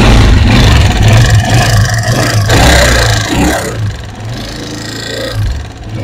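Honda CG125's air-cooled single-cylinder pushrod four-stroke engine running with the valve-train noise the owner calls extremely dangerous. It revs for the first few seconds, then drops to a lower idle about four seconds in. The noise is the sign of a broken push rod.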